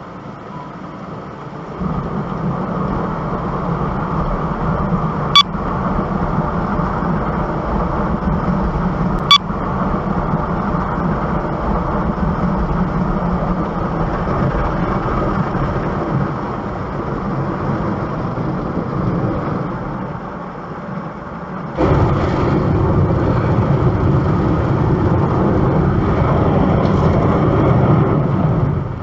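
Steady car engine and road noise. Two short sharp clicks come about five and nine seconds in, and the noise gets louder about twenty-two seconds in.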